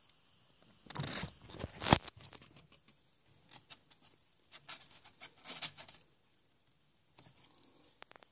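Handling noise: irregular rustling and light clicking as a hand and a camera move around a gecko enclosure, in three short clusters, with one sharper knock about two seconds in.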